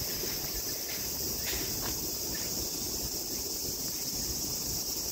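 Steady, high-pitched chorus of insects shrilling, with wind rumbling low on the microphone.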